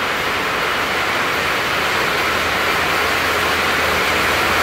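Steady rushing hiss of rain and running water, growing slightly louder.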